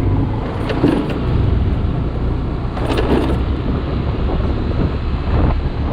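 Vehicle engine and road noise while travelling through city traffic: a steady low rumble, with two brief sharper noises about one second and three seconds in.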